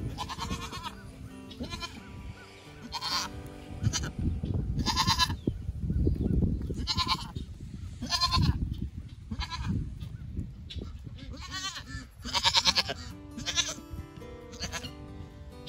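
Newborn Nigerian Dwarf goat kid bleating over and over: about a dozen short, high-pitched, wavering bleats, roughly one every second.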